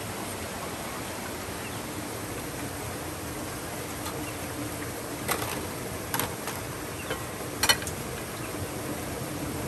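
Steady rush of flowing river water with a faint low hum, broken by a few sharp clicks between about five and eight seconds in.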